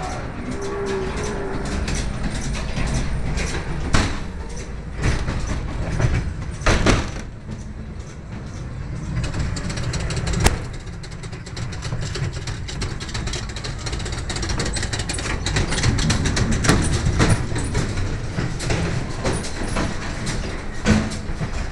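Ghost train ride car running along its track: a steady low rumble broken by many sharp knocks and bangs.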